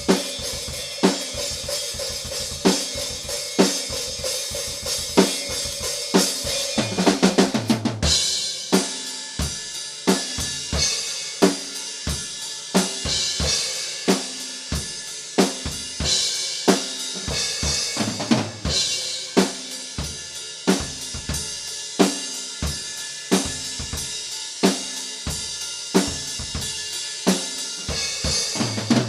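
Metal drum kit played alone: a steady groove of bass drum, snare and hi-hat with cymbal crashes. About seven seconds in comes a quick fill, then the groove goes on with more cymbal.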